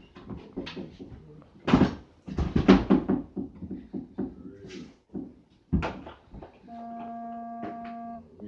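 Knocks and handling noises, with a few sharp hits, then about two-thirds of the way in a mobile phone ringtone: a steady buzzy electronic tone lasting about a second and a half.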